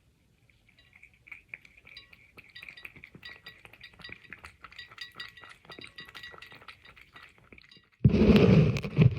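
A cat lapping water with quick, even little licks, about four a second, with light clinks against its drinking vessel. Near the end comes a much louder burst of noise lasting about a second and a half.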